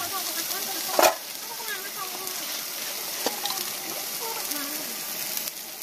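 Onion gravy sizzling steadily as it fries in a steel kadai on a gas stove. There is a sharp knock about a second in and a smaller one a little after three seconds.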